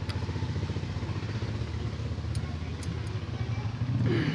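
An engine running steadily nearby with a low, rapid thrum that grows louder near the end, with a few faint clicks.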